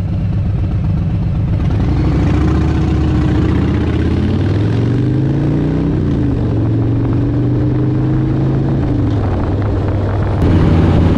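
Harley-Davidson Breakout's V-twin engine heard from on board while riding. The pitch rises as it accelerates, drops at a gear change about halfway through, then holds steady while cruising.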